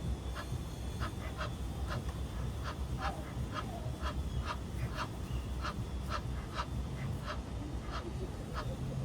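Duck quacking in a rapid series of short calls, about two a second, over a steady low background rumble.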